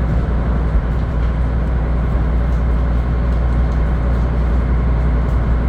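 Sightseeing cruise boat's engine running under way: a steady, loud low drone with a hiss of wind and water over it.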